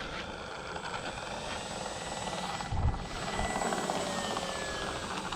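A propeller aircraft's steady motor hum, its pitch sliding slowly down and back up, over a low rumble. A brief low thump comes about three seconds in.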